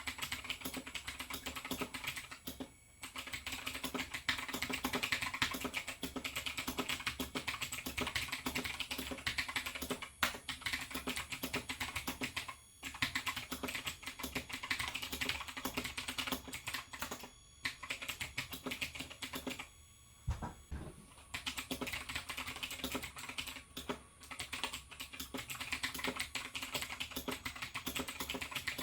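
Fast, continuous typing on a Razer BlackWidow X Chroma mechanical keyboard with clicky Razer Green switches and ABS keycaps, a dense stream of key clicks broken by a few brief pauses. A single low thud comes about two-thirds of the way through.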